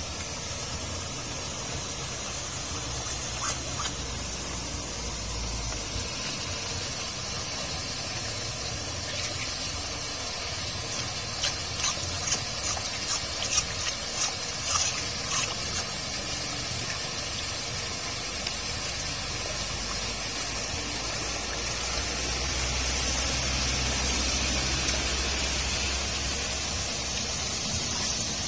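Muddy rainwater gushing through a slotted metal curb drain grate, a steady rushing splash. A run of short, sharp splashes comes about halfway through, and the flow grows louder a few seconds before the end.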